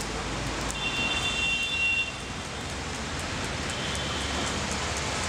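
Steady roadside traffic noise, with a high, steady horn-like tone sounding for about a second near the start and a fainter one about four seconds in.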